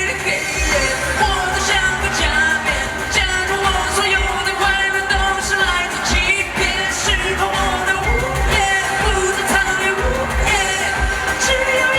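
Live Chinese pop song: a steady heavy beat with a sung vocal line over it.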